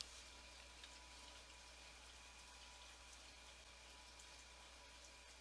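Near silence: faint room tone with a steady low hum and hiss.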